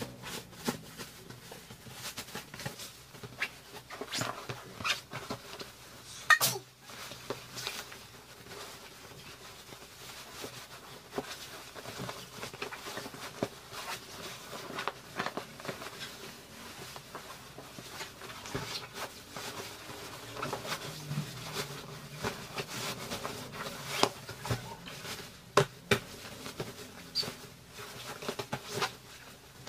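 Bed sheet and pillowcase fabric being handled as a pillow is worked into its case: irregular rustling and soft taps, with one sharper knock about six seconds in.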